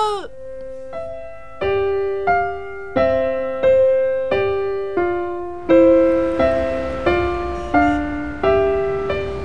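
Piano music: a slow melody of single struck notes, each dying away, about one every 0.7 seconds, with lower notes and chords joining beneath about halfway through and making it fuller.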